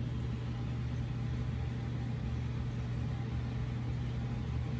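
Steady low machine hum, unchanging throughout.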